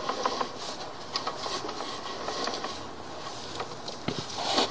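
Sewer inspection camera's push cable being fed into the line by hand, making faint irregular clicks and rustling.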